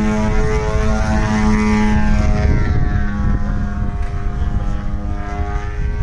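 Radio-controlled aerobatic model airplane's engine and propeller flying overhead at power: a steady drone whose pitch glides down a little partway through.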